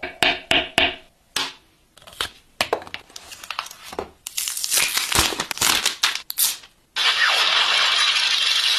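Unboxing handling sounds: a string of sharp taps, clicks and short scrapes and rustles as packaging and parts are handled. Near the end a loud, steady hiss cuts in abruptly.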